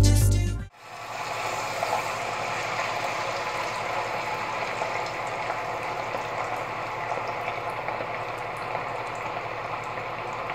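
Starch-coated whelk meat deep-frying in oil at 180 °C, a steady sizzling and bubbling.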